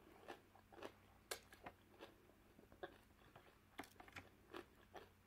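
Faint, scattered clicks and crackles of eating blue crab: chewing and picking at the shell, about a dozen small sounds spread through the quiet.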